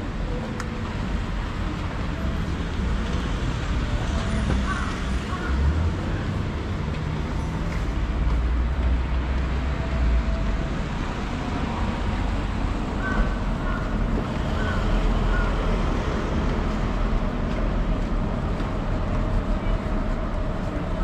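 City street traffic: cars and trucks passing on the road, with a steady low rumble underneath.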